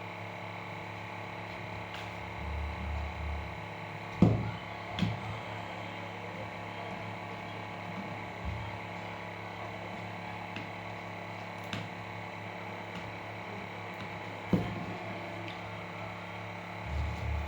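Steady electrical hum, with a few short sharp knocks and rustles from handling the Apple Watch box while working at its pull-off tear strips; the loudest knock comes about four seconds in.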